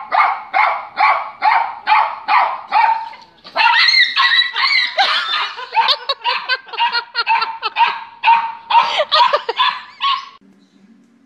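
Small dog barking in high-pitched yaps, about two a second at first, then a faster, denser run of barking from about three seconds in, which stops shortly before the end.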